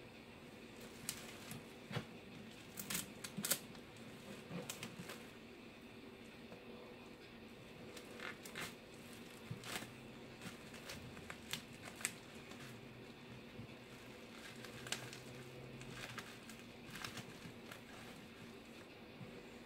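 Plastic bubble wrap crinkling and crackling as it is handled and taped down, in faint, irregular clicks and crackles.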